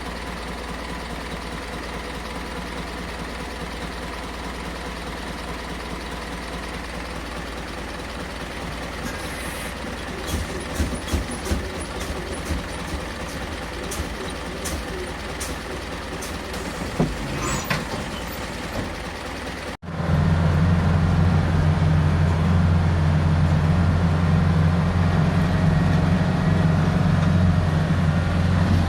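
Isuzu 4HK1 four-cylinder diesel engine of a medium bus running after its cylinder head repair. It is at first a quieter steady hum with a few sharp clicks in the middle. About twenty seconds in it becomes a much louder, steady low drone.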